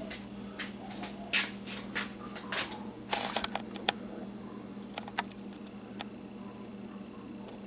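Handling sounds: a run of short clicks, knocks and rustles, thickest in the first four seconds and then only now and then, over a steady low hum.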